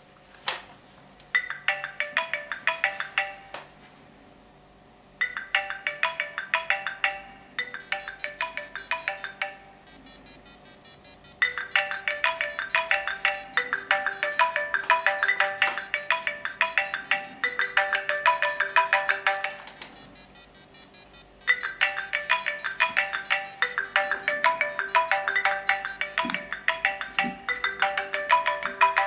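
iPod touch alarm ringing: a quick repeating electronic melody of short chiming notes, in several stretches separated by brief pauses.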